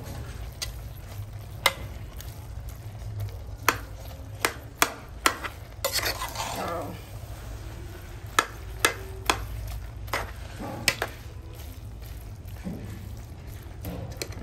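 Metal spoon clanking against the sides of a metal cooking pot while spaghetti and corned beef are stirred and tossed, about a dozen sharp knocks at irregular intervals, most of them in the middle of the stretch.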